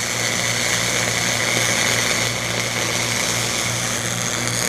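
Flux-cored arc welding: the arc crackling and sizzling steadily while a fill pass is run in a V-groove on thick plate, with a steady low hum underneath.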